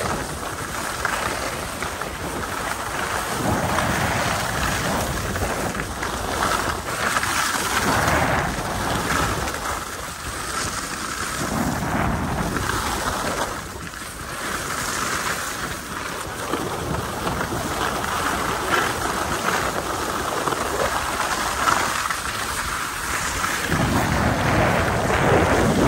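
Wind rushing over the microphone together with the hiss and scrape of skis on packed snow, rising and falling in gusts with deep buffeting rumbles now and then.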